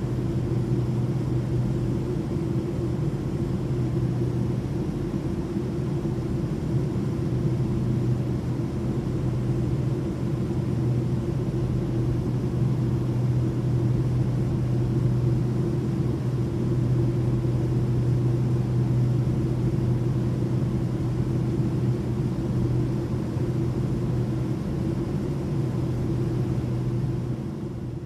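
Inside an airplane cabin in flight: a steady drone of engines and rushing air with a strong low hum, fading out near the end.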